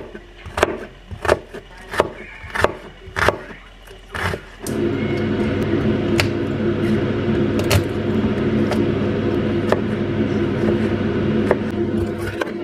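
Kitchen knife slicing a red onion on a wooden cutting board, with sharp knocks about every two-thirds of a second. About four and a half seconds in, a steady mechanical hum starts and continues, with a few more knife knocks on the board over it as the cutting moves on to a red bell pepper.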